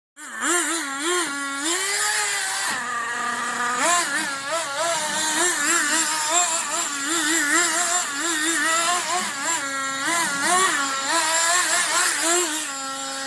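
Small gas engine of a radio-controlled car running hard, its pitch rising and falling over and over as the throttle is worked, with a couple of short spells at a steady pitch.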